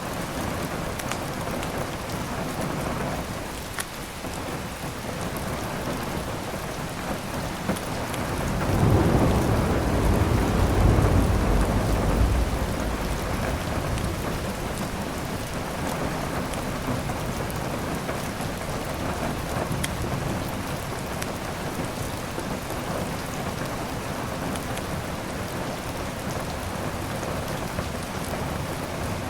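Steady heavy rain, with a roll of thunder rumbling up about nine seconds in and fading over some four seconds. A few faint crackles of a wood fire sound over the rain.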